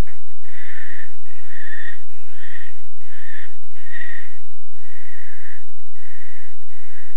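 Barn owl snoring: a long run of rasping, hissing calls, each about half a second long, repeated about every 0.8 seconds.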